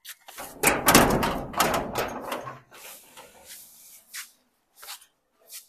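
A door being opened, with about two seconds of clattering and knocking, followed by a few light, separate clicks.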